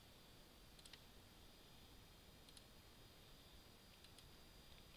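Near silence with three faint computer mouse clicks, about a second in, halfway through and near the end.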